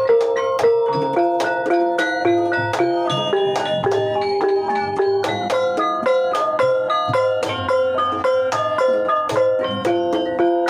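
Banyumasan gamelan playing a gending: a xylophone-like keyed instrument struck with two mallets carries a quick melody over kendang hand drums and struck hanging gongs, at a steady beat.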